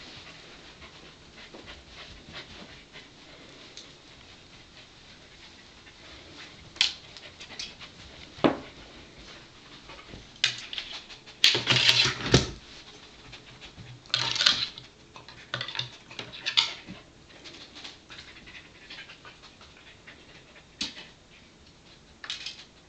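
Pembroke Welsh Corgi sniffing in short bursts and panting as she noses around for hidden treats, with a few light clicks and a bump about twelve seconds in.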